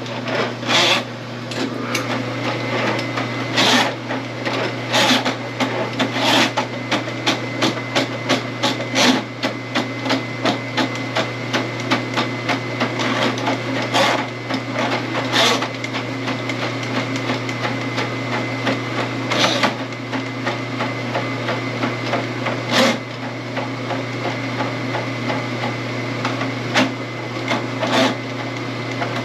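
Powered drain snake running with a steady motor hum while the spinning cable clatters and knocks irregularly in the drain line.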